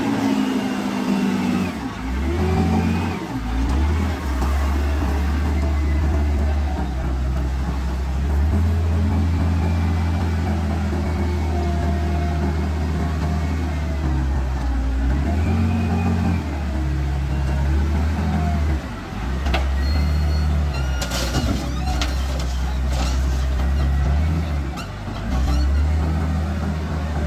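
Wheel loader's diesel engine running under load, its revs rising and falling in steps as it digs into the soil pile, drives and lifts the full bucket. A few sharp knocks about two-thirds of the way through.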